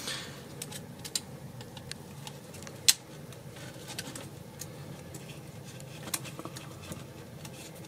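Scattered light clicks and taps of a small screwdriver and plastic RC-truck suspension parts being handled, the loudest about three seconds in, over a faint steady low hum.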